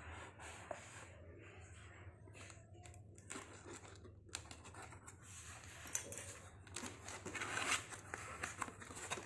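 Packing tape on a cardboard shipping box being scored and torn open, then cardboard scraping and rustling as the box is handled and pried open. The handling is loudest about six to eight seconds in.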